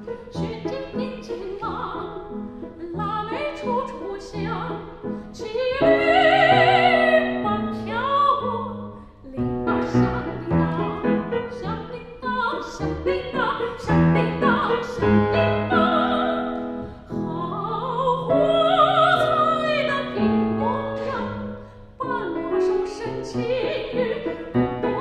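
Soprano singing in operatic style with Steinway grand piano accompaniment, the voice swelling on long high notes with wide vibrato about six seconds in and again near twenty seconds.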